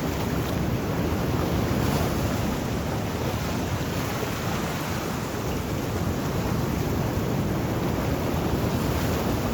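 Sea waves: a continuous rush of surf with gentle swells in loudness.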